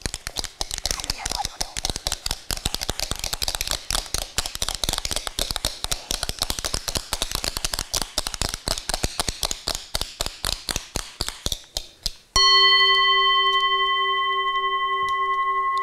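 Shell castanets clattering in many quick clicks, several at once, until about twelve seconds in they fall silent and a singing bowl is struck once. The bowl rings a clear, long tone with several overtones that slowly fades, the cue in this exercise for the clattering to stop.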